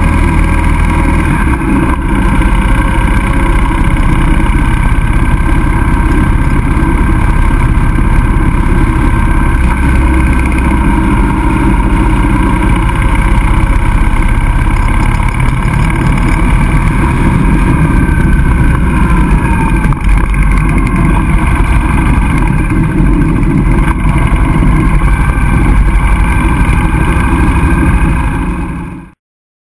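Motorcycle engine running steadily at road speed, heard from a camera mounted on the bike, with wind rushing past. The sound fades out near the end.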